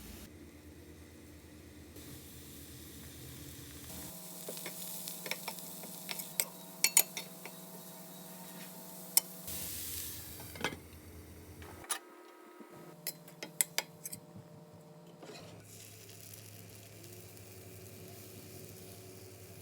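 Cooking sounds: metal utensils clinking and tapping against a pan, with a faint sizzle of frying batter. The sharp clinks come in clusters through the middle, with a short burst of hissing about ten seconds in.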